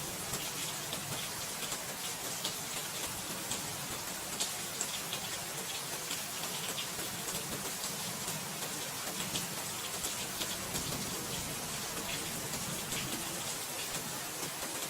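Steady rain, a constant hiss with many separate drops ticking close by.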